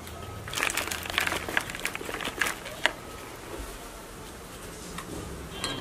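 Clumps of potting soil dropping into a plastic pot: a quick run of small clicks and patters over the first three seconds, then quieter.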